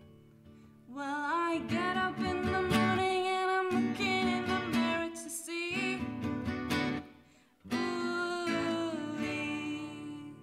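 A woman singing two long phrases, the first starting about a second in and the second shortly after a brief pause, over two acoustic guitars, one of them a classical guitar.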